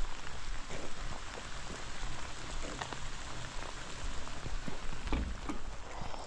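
Heavy rain falling steadily, an even hiss with many scattered drops ticking and spattering on hard surfaces.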